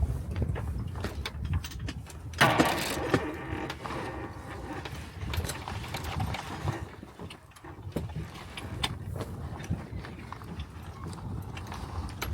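Sailing yacht's deck gear being worked as the mainsail is eased and a reef shaken out: a run of ratcheting clicks and rattles from the winch and blocks, loudest about two and a half seconds in, over a steady low rumble of wind and water.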